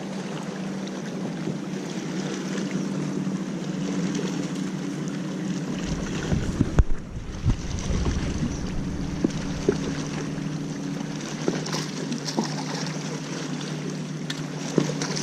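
Steady low hum of a boat motor, with wind buffeting the microphone. A gust about halfway through brings a sharp knock and a few lighter taps.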